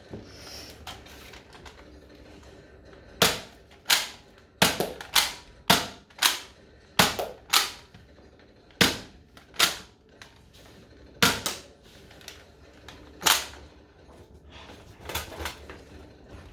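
Toy Nerf blaster firing foam darts over and over: about a dozen sharp snapping clacks at uneven intervals, some in quick pairs, then a few softer knocks near the end.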